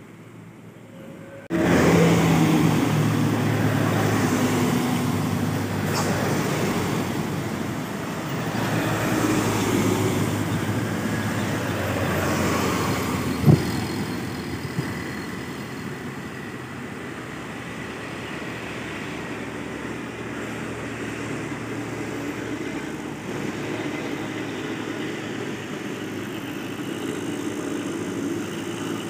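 Diesel engines of a bus and a line of cargo trucks running in slow traffic, a steady engine rumble with road noise that starts abruptly about a second and a half in. A short sharp knock stands out about halfway through.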